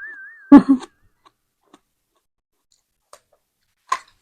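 Mouth sounds of eating crisp stir-fried vegetables: one loud short sound about half a second in, a quiet stretch, then crunchy chewing starting near the end. A wavering, whistle-like tone fades out in the first half second.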